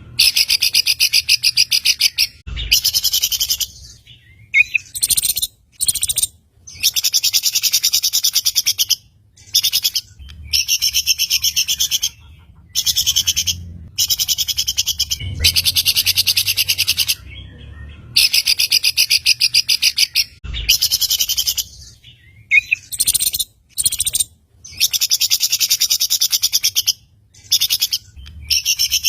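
Songbird song used as a 'masteran' teaching track for caged birds: fast, high-pitched chattering phrases of one to two seconds each, repeated over and over with short pauses between them.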